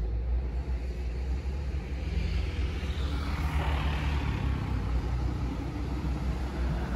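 A motor vehicle passes on the street, its engine and tyre noise swelling from about two seconds in and fading again a few seconds later, over a steady low rumble.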